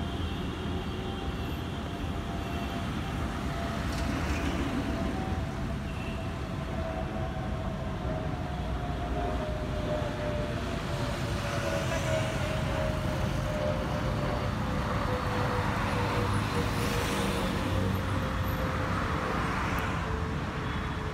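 Road traffic on a wide multi-lane city road: a steady hum of car and motorcycle engines and tyres as vehicles pass. A faint tone runs through it, slowly falling in pitch.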